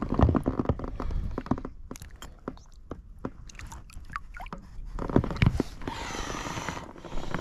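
Water splashing and sloshing as a bull trout is released by hand over the side of an inflatable boat, with scattered small splashes and drips. The handling noise is busiest at the start, quieter in the middle, and louder again about five seconds in.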